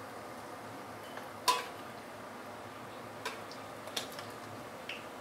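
A stainless steel ladle clinking against a stainless steel wok while scooping deep-fried fish out of the oil: four short clinks, the loudest about one and a half seconds in with a brief ring, over a faint steady hiss.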